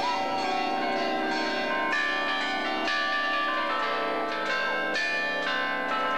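Church bells pealing: several bells struck one after another in quick succession, their tones ringing on and overlapping.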